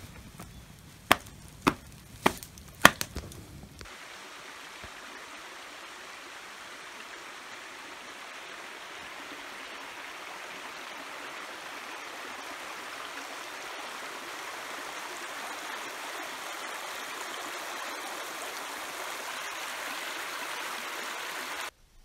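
A few sharp knocks in the first seconds, then the steady rushing of a small woodland stream flowing over rocks, growing slightly louder before cutting off suddenly near the end.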